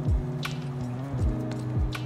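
Background music with a steady beat: a deep kick drum about every two-thirds of a second under held chords, with a sharp snare-like hit about halfway through.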